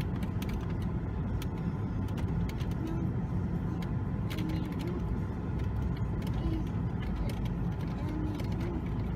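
Steady low road and engine rumble inside a moving car, with scattered faint clicks and rattles.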